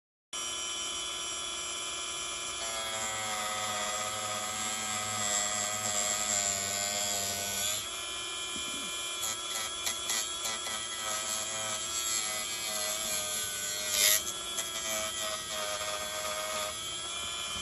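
Dremel rotary tool running at high speed, a steady whine that wavers and dips as it grinds through old rubber hose gone hard with age, with a sharp click late on.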